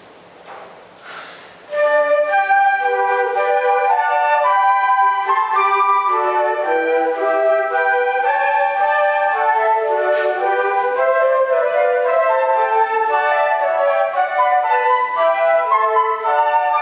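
Flute ensemble playing a piece in several parts, held notes moving together in harmony. The playing begins about two seconds in, after a couple of soft short noises.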